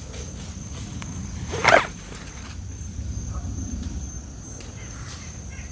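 A single short dog bark about a second and a half in, over a steady high insect buzz and the low rustle of footsteps on a woodland trail.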